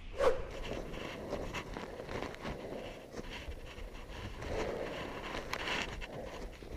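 Footsteps crunching on firm snow in an uneven rhythm as a roped climber ascends, with wind rumbling on the microphone.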